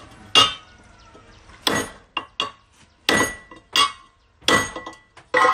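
A carbon-steel knife blade forged from an old saw blade chopping repeatedly into a galvanized steel square tube: about six hard metallic clanks with a couple of lighter taps between them, some leaving a short ring.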